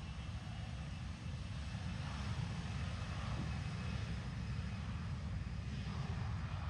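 Airliner jet engines, a steady rumble with a hiss over it that grows a little louder about a second in.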